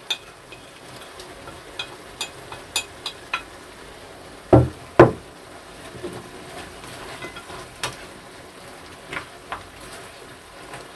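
Cabbage, onion and meat stir-frying in a pan with a quiet sizzle, a wooden spatula stirring and clicking against the pan. Two loud knocks come close together about halfway through.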